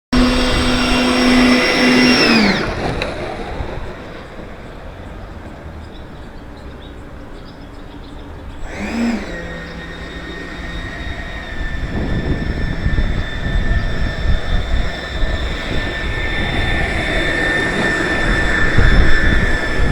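Radio-controlled model jet's power unit whining, a high steady whine that winds down about two seconds in. It spools up again about nine seconds in and then holds a steady, slowly rising whine, over rumbling wind noise.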